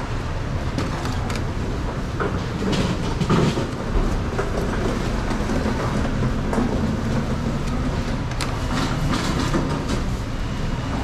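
Steady low background rumble, with scattered short scrapes and clicks of a peeler and knife working a green guava over a plastic cutting board.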